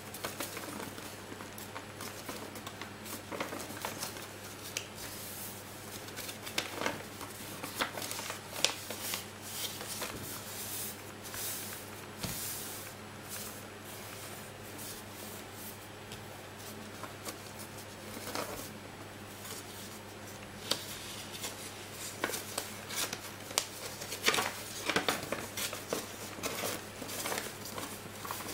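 A sheet of paper being folded and creased by hand on a desk: irregular rustles, crinkles and sharp creasing swipes, busiest in two stretches, one early on and one near the end.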